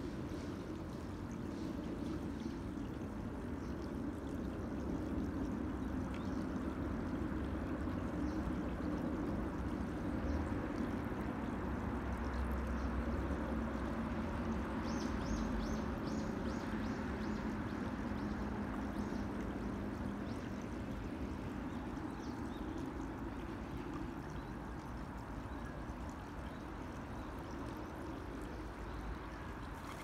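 A small, shallow rocky mountain stream trickling and gurgling steadily, over a steady low rumble.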